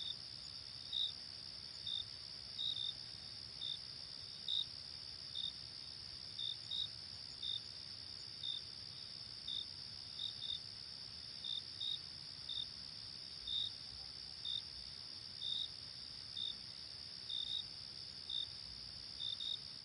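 Crickets chirping at night: short, high chirps come about once a second, sometimes in quick pairs, over a steady, higher-pitched insect trill.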